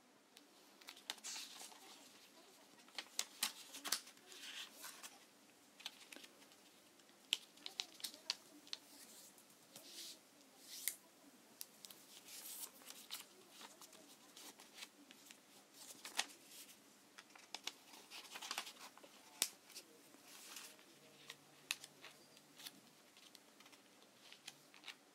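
A sheet of origami paper being folded and creased by hand: faint, irregular rustles, crinkles and sharp little snaps of paper as folds are made and pressed flat.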